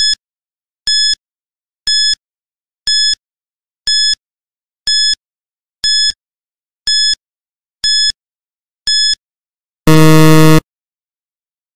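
Quiz countdown timer sound effect: ten short electronic beeps, one a second, then a loud harsh buzzer about ten seconds in that marks time running out.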